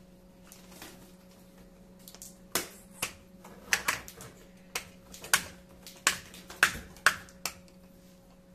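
Interlocking wooden deck tiles being snapped together: a run of about a dozen sharp clicks and snaps, irregularly spaced, from a couple of seconds in until near the end, as the plastic locking tabs of the tiles are pressed into place.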